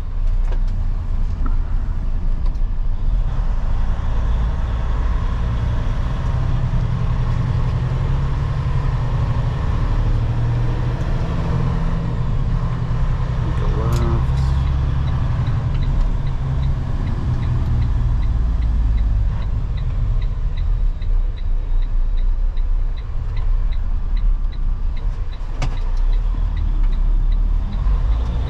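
A loaded semi-truck's diesel engine and road noise heard from inside the cab while driving, a steady low rumble. A short sharp sound comes about halfway, followed by a light, regular ticking.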